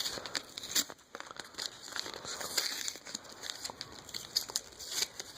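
Foil Pokémon card booster pack wrapper crinkling and crackling in the hands, with irregular short crackles as it is handled.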